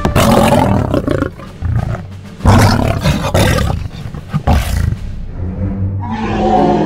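A monster roar sound effect, three loud roars with short gaps between them, over background music.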